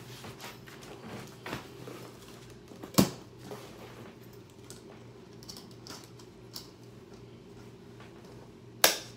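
School supplies being handled and packed: scattered light clicks, taps and rustles, with two sharp knocks, one about three seconds in and one near the end, over a faint steady hum.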